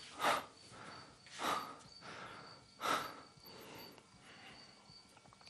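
A distressed man breathing heavily: three loud, noisy breaths about a second and a half apart.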